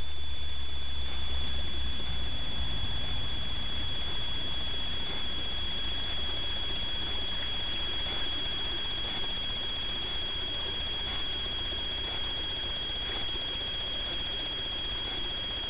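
Steady hiss under a constant high-pitched whine, the electronic self-noise of a Dörr BolyGuard infrared trail camera's recording, slowly getting quieter.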